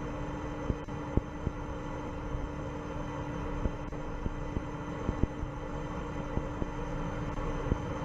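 Steady rumbling noise with a constant low hum and scattered clicks, from the Electron rocket's second stage in powered flight, its Rutherford engine still burning.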